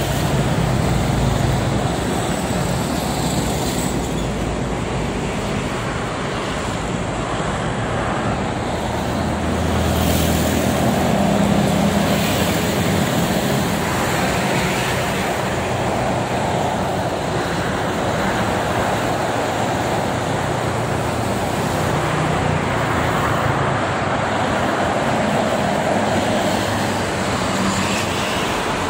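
Steady multi-lane highway traffic noise: heavy trucks and cars passing at speed, with tyre noise and the low drone of truck engines. The drone swells as big trucks go by, loudest about ten seconds in.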